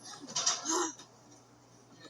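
A person making a short, breathy funny vocal noise lasting under a second, ending on a lower voiced note.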